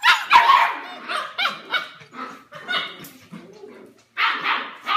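Seven-week-old F1 Bernedoodle puppies barking and yipping: a run of short puppy barks one after another, loudest at the start and again about four seconds in.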